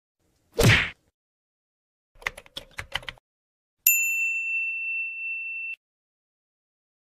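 Subscribe-animation sound effects: a short swoosh, a quick run of small clicks, then a single notification-bell ding about four seconds in that rings on steadily for nearly two seconds before cutting off.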